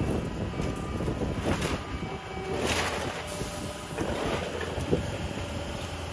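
Skid-steer loader's diesel engine running steadily while its grapple crunches through demolition debris of wood and siding, with several crackling crashes and a sharp snap about five seconds in.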